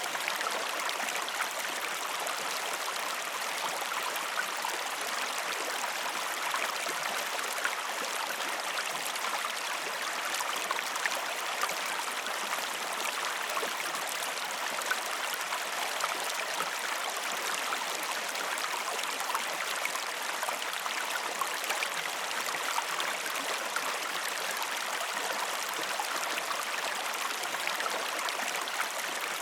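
A stream of water flowing steadily, a constant rush of water sprinkled with many small splashes and gurgles.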